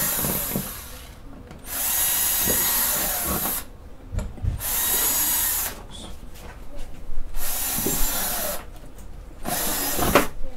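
Handheld power drill with a quarter-inch bit drilling ventilation holes through a plastic tote lid, in four or five separate runs of whirring about one to two seconds each. Between the holes come short knocks and clatter as the plastic lid is shifted on the bench.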